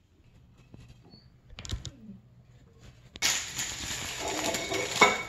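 Near quiet with a single soft knock, then, about three seconds in, a paper towel crinkling and rustling against parchment paper as squash strips are patted dry. A sharp knock comes near the end.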